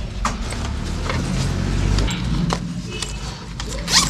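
Low, steady engine rumble of a vehicle, swelling and easing off around the middle, with a few light clicks and knocks over it.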